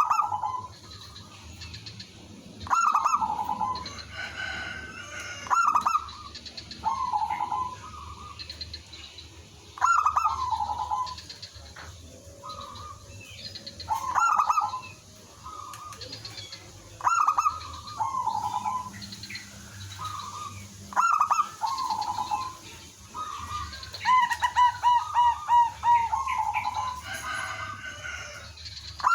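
Zebra dove cooing: a repeated phrase of short coos every three to four seconds, with a fast run of rapid short notes near the end.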